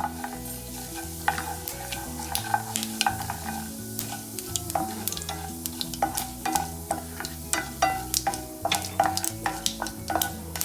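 A spoon scraping and clicking irregularly against a pan while urad dal is stirred and fried in hot oil for a tempering.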